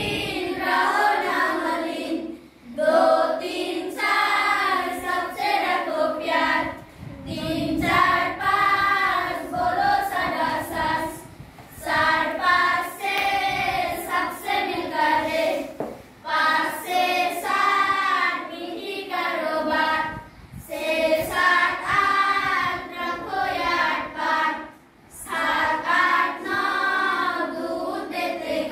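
A class of schoolchildren singing an action song together, in phrases with short breaks about every four to five seconds.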